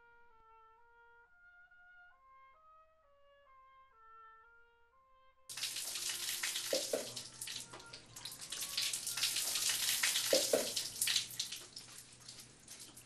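A soft, slow instrumental melody of single notes stepping up and down, cut off about five seconds in by a shower running: a steady, loud spray of water splashing onto a person standing under it.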